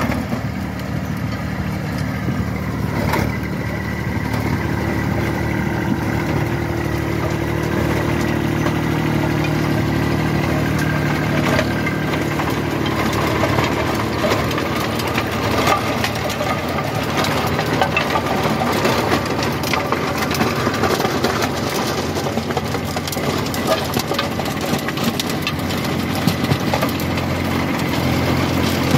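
Compact Kubota four-wheel-drive tractors' diesel engines running steadily under load while a rotavator churns dry, cloddy soil, with scattered clicks and knocks through the engine sound.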